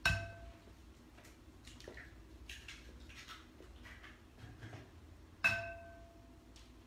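Eggs being cracked on the rim of a ceramic bowl: two sharp taps, one at the start and one about five and a half seconds in, each leaving the bowl ringing briefly, with soft shell clicks in between.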